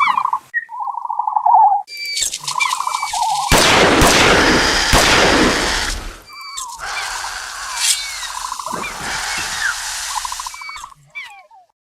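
Dilophosaurus creature sound effects: warbling hoots and short gliding chirps, with a long hissing rasp a few seconds in, then more hissing, chirps and warbles.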